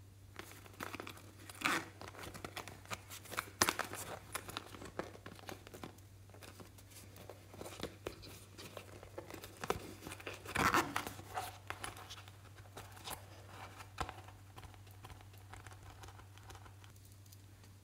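Sequins, glitter and small foam pieces being shaken out of a red faux-leather coin purse onto slime, making an irregular crinkling and rustling with many small ticks. The sound comes in a few louder bursts and thins out near the end, over a steady low hum.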